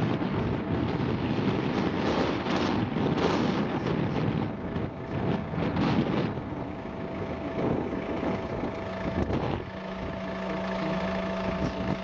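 Wind buffeting the microphone in uneven gusts. About ten seconds in, a steady low hum with a higher tone above it sets in, like a motor running at idle.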